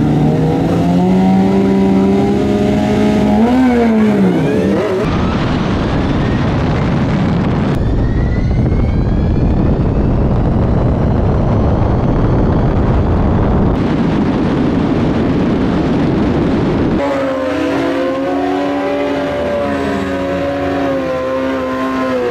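Kawasaki ZX-10R inline-four sportbike engine revving at the start line, its pitch climbing, with a sharp rev and drop about four seconds in as it launches. The sound then changes to a loud wind roar at speed, with a faint whine rising in pitch from the Energica EGO RS electric motor. About five seconds before the end, a motorcycle engine is heard running again.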